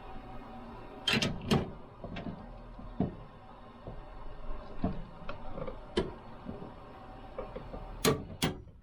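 Hand-tool clicks and knocks as a fastener is torqued by hand to 25 foot-pounds. Three sharp clicks come about a second in, lighter ticks follow, and two loud clicks come near the end.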